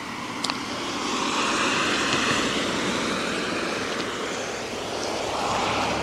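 Road vehicle passing: tyre and engine noise swells about a second in and eases off, and a second vehicle approaches near the end.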